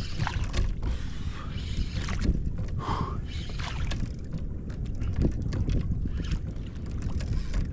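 Wind buffeting the microphone over water sloshing against a kayak, with scattered short clicks and knocks.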